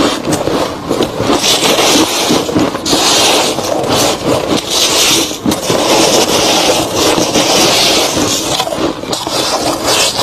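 Close-miked crunching of soft, crispy freezer frost being chewed, in repeated crackly stretches that come and go every second or so.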